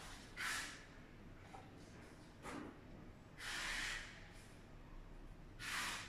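A person breathing close to the microphone: four short, hissy exhales through the nose, the longest a little past the middle.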